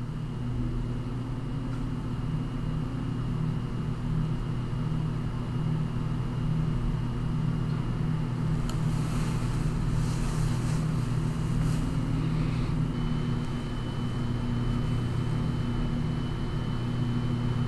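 Steady low mechanical hum with a thin, faint high whine above it, constant background machine noise on the microphone.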